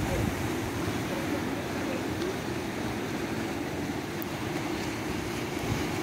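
Steady rushing of wind and sea surf, with a low rumble and no distinct events.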